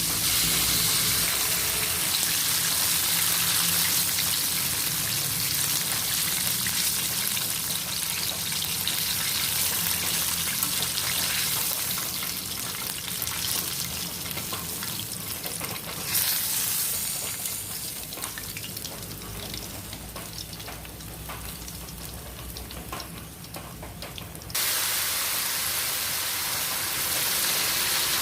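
Food sizzling as it fries in hot oil in a pan, with scattered clicks of stirring. The sizzle drops quieter in the second half, then comes back abruptly loud near the end.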